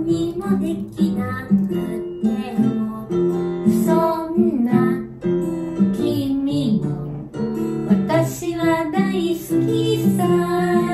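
A song with strummed acoustic guitar and a singing voice carrying the melody.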